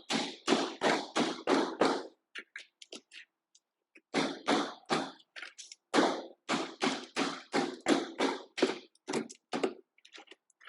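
Hammer blows knocking out the waste wood of a half-lap joint, sharp knocks at about two to three a second, in runs broken by a short pause near the middle and a few lighter taps.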